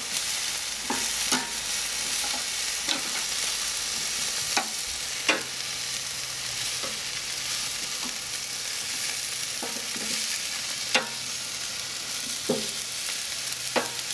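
Butterflied chicken drumsticks sizzling steadily on a charcoal grill's grate as they are flipped with tongs. Sharp clicks of the tongs against the grate come every second or two.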